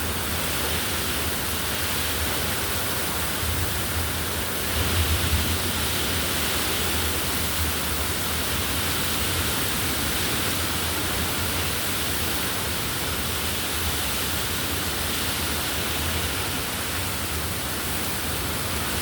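Wind and rain of a thunderstorm, a steady rushing noise that briefly grows louder about five seconds in.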